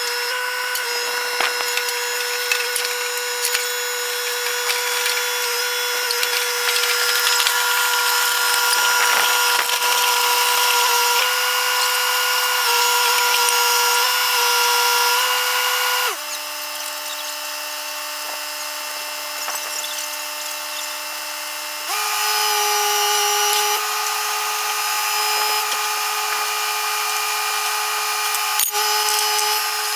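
A steady machine whine. It drops to a lower pitch about 16 seconds in and returns to a higher pitch about 22 seconds in.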